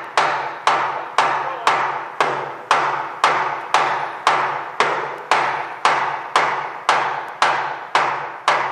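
Hammer blows on a metal shaft of a 20mm Flakvierling gun mount, struck steadily about twice a second, each blow ringing and fading before the next: the shaft is being driven out of the mount.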